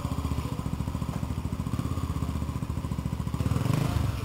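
Motorcycle engine idling with a steady, rapid exhaust beat, swelling louder for a moment near the end.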